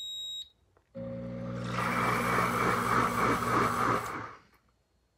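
Pampered Chef Deluxe Cooking Blender beeps once as its heated wash cycle starts. About a second in, its motor spins up and churns the water and dish soap for about three seconds, then stops.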